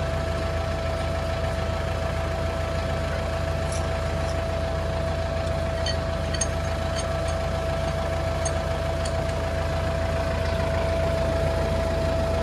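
Tractor diesel engine idling steadily close by, with a steady whine over it. A few faint light clicks come about halfway through.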